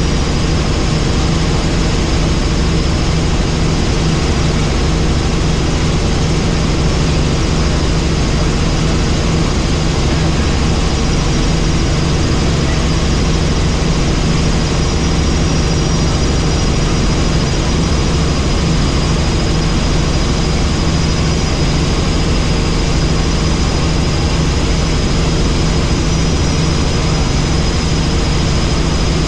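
Helicopter in flight: a loud, steady, unchanging drone of engine and rotor, with a thin high whine above it.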